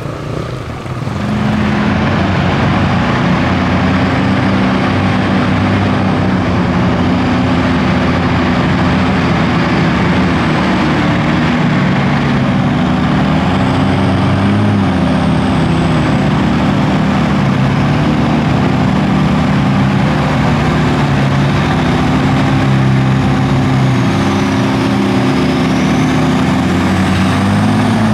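Engines of several heavy off-road trucks running and revving under load as they churn through a deep mud pit, their overlapping notes shifting in pitch. The engine noise comes up about a second in.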